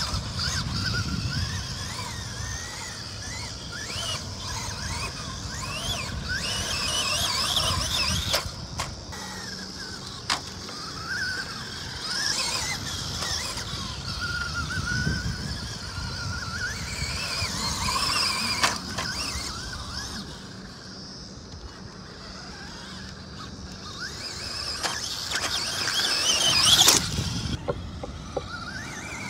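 Electric RC trophy truck driving: a high-pitched motor and drivetrain whine that glides up and down in repeated bursts, loudest about 27 seconds in.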